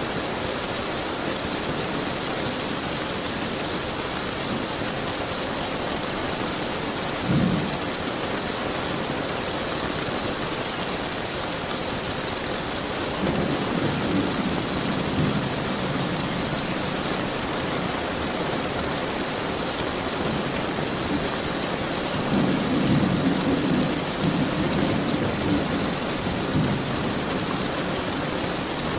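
Steady rain hissing throughout, with rumbles of thunder over it: a short one about seven seconds in, a longer roll around the middle, and another near the end.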